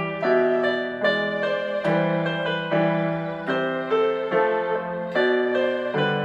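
Solo piano playing a slow ballad, a melody over held chords, with a new note or chord struck about every half second.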